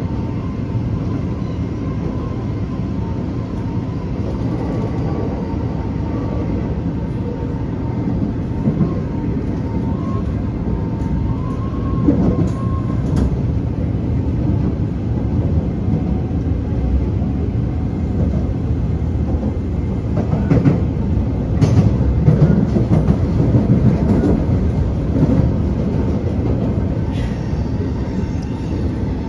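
Taipei Metro train running between stations, heard from inside the car: a steady rolling rumble with a thin whine over the first half. There are a few sharp clacks from the wheels over the track, and the rumble grows louder past the middle.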